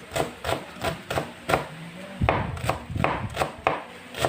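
Knife slicing oregano leaves on a chopping board: steady cuts about three a second, with a brief pause about halfway through.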